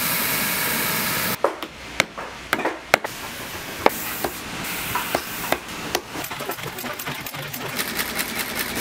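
A spinning sanding wheel grinding a boot's edge with a loud, even rasp, which cuts off about a second and a half in. Then about nine sharp knocks, irregularly spaced, as nails are hammered into a leather sole. Near the end comes the quick, steady ticking of a sole-stitching machine.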